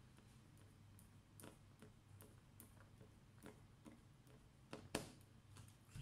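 Faint, irregular small clicks and ticks from a screwdriver and fingertips working on the bottom cover of a Dell Inspiron 3511 laptop, with one sharper click about five seconds in.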